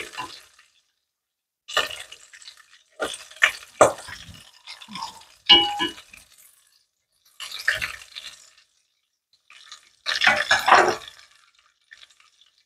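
Corn tortilla tacos sizzling and crackling in hot vegetable oil as metal tongs turn them over, in about five bursts with clicks and a short metallic clink of the tongs against the pot.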